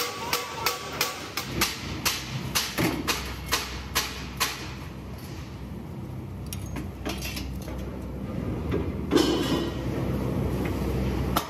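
Sharp metal clanks and knocks, about two a second, as steel LPG cylinder bodies are handled and set into a welding fixture. From about five seconds in, a steady low machine hum takes over, with one louder knock a little after nine seconds.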